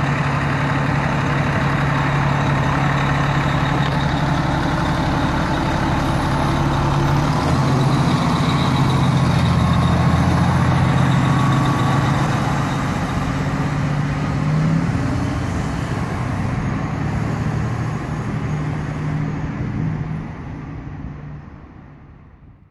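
Diesel engine of an E-One ladder fire truck running, with its pitch stepping a couple of times. It is loudest as the truck moves past close by, about ten seconds in, then dies away near the end.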